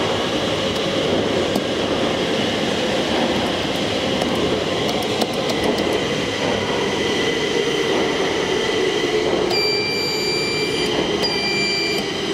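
Metro train rumble in the station, a steady loud noise whose hum slowly falls in pitch. Near the end, a high electronic beep sounds twice, the first longer than the second.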